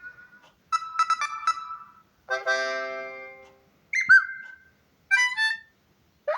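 Samsung Galaxy M32 ringtone and alert sounds played one after another: about five short electronic melodies and chimes, each a second or less long, with brief silences between them.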